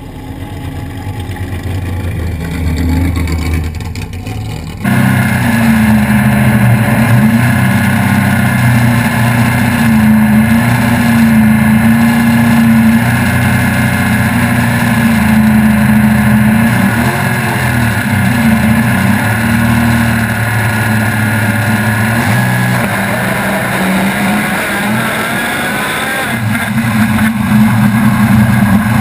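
Naturally aspirated small-block Chevy V8 of a sand drag jeep running at low, steady revs as the jeep drives slowly, with an even engine drone. It is quieter at first, then abruptly louder from about five seconds in.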